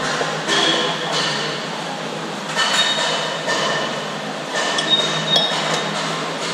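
Hammer blows on a steel drift held against a motorcycle's steering stem, working its steering-head bearing race: several spaced, sharp metallic clinks, each with a brief high ring.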